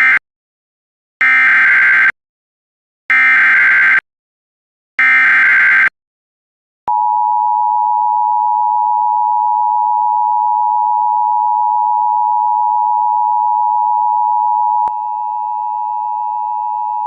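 Emergency Alert System tones. A short data burst comes first, then three shrill digital SAME header bursts of about a second each, one after another. About seven seconds in, the steady two-tone attention signal (853 and 960 Hz) starts and holds.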